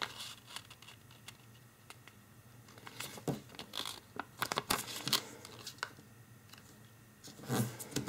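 Origami paper rustling and crinkling as hands fold it and press a crease flat, in scattered short crackles that come and go, busiest about three to five seconds in and again near the end.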